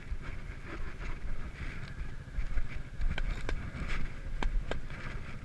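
A vehicle engine running steadily as a low rumble, with four sharp clicks or knocks over it in the second half.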